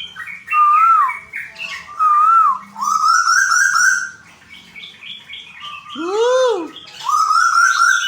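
Asian koel (tuwu) calling: warbling whistles and runs of quick rising notes, with a loud arching call about six seconds in.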